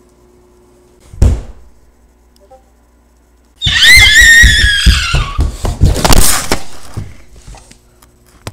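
A single loud thump about a second in. From about three and a half seconds in, a loud, high-pitched cry slides down in pitch over about three seconds, over a clatter of knocks and scuffles on a wooden floor, then fades.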